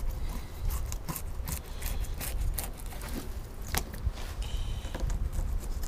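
Fillet knife cutting through a crappie on a plastic cutting board: scattered soft clicks and scrapes over a steady low rumble, with a short high steady tone about four and a half seconds in.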